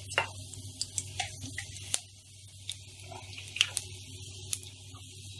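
Cumin seeds crackling in hot oil for a tadka: irregular sharp pops, about two a second, over a faint sizzle. The oil is hot enough to make the seeds splutter.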